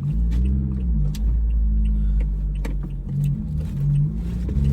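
Car engine running with a low, steady drone that comes in suddenly, its pitch rising and falling a few times, with faint clicks over it.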